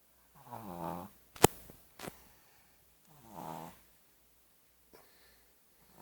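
A sleeping pet snoring: two snores about three seconds apart, each lasting under a second, with the next one starting right at the end. A sharp click about a second and a half in is the loudest sound, followed by a fainter click half a second later.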